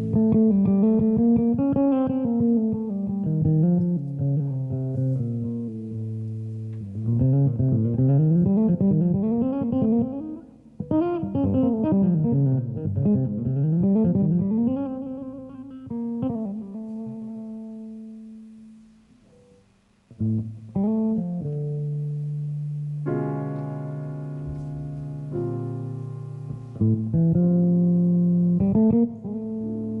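Solo guitar playing a slow jazz piece: fast runs sweeping up and down, then a passage that fades almost to nothing about two-thirds through before full sustained chords come in.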